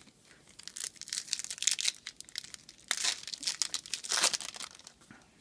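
Foil wrapper of a Bowman Chrome baseball-card pack crinkling and tearing as it is pulled open by hand, in several crackly bursts.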